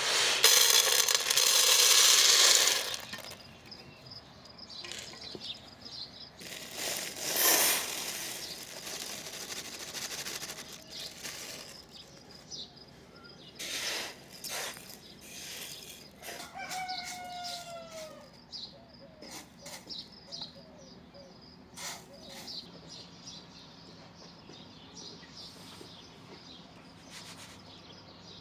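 Chickens: a loud burst of wing flapping at the start and another about seven seconds in, then scattered clucks with one drawn-out falling call about halfway through.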